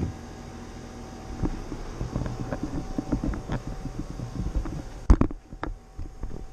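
Handling noise from a handheld camera being moved about: irregular low rumbling and small knocks, with one loud thump about five seconds in, over a faint steady tone.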